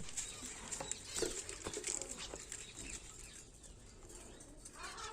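Budgerigars: soft, scattered chirps and small clicks, with a short chattering call near the end.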